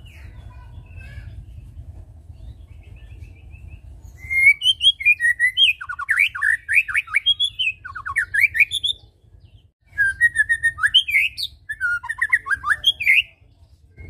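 White-rumped shama (murai batu) singing a fast, varied song of sliding whistles and rapid trills. The song starts about four seconds in and comes in two long bursts with a brief pause just before ten seconds.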